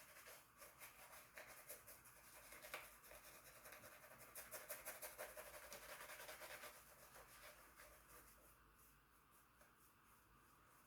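Faint quick rubbing strokes of a boar-bristle shaving brush working lather, a few strokes a second, strongest in the middle and dying away near the end.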